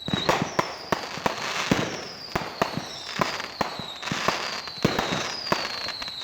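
Fireworks going off in quick succession: many sharp bangs and pops, about two a second, with a high falling whistle repeating over and over.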